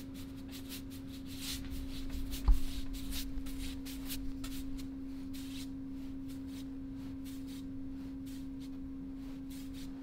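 Soft-bristled paintbrush stroking paint across a drywall sheet, a run of scratchy swishes mostly in the first half, with one sharp knock about two and a half seconds in. A steady low hum underlies it throughout.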